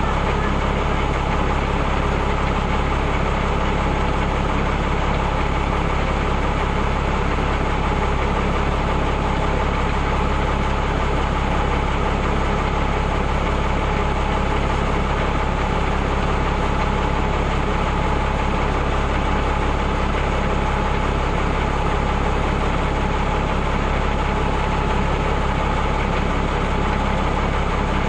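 Engine of an M35 'Reo' army truck running steadily and unchanging, with no revving or pauses.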